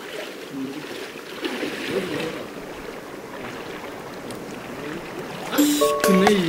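River water sloshing and splashing around the legs of two people wading through a shallow stream. Background music comes in near the end, louder than the water.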